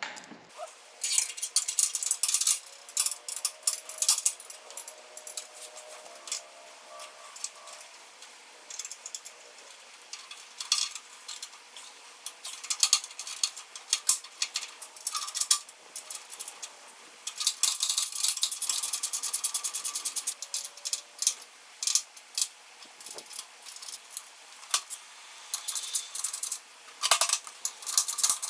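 Light metallic clicks, clinks and rattles of a PVF-coated steel brake line and its fittings being handled and fitted along a truck frame, with a quick run of closely spaced clicks about two-thirds of the way through.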